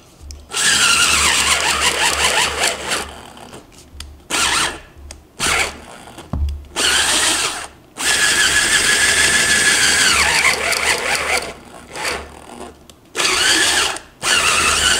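PRIMERO DDR-70AZA drill driver in drill mode boring a 15 mm hole into wood. Its motor whines in repeated bursts of up to a few seconds, the pitch sagging as it bogs down. It stops in the cut and starts again as the pressure is eased: the drill is short of power for a bit this size.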